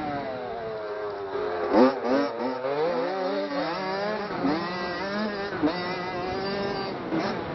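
Dirt bike engine revving as the bike is ridden over a motocross track. The pitch falls steadily at first, then rises and falls quickly several times between about two and four seconds in, before levelling off.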